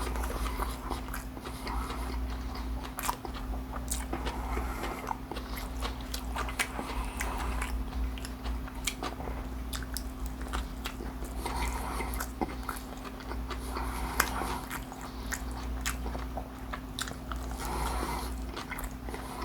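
A person biting and chewing a crispy fried fish taco, with many short crunches and clicks throughout. A steady low hum sits underneath.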